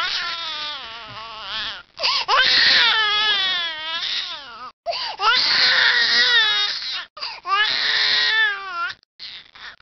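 An infant crying in about five loud cries, each wavering up and down in pitch, with short pauses for breath between them.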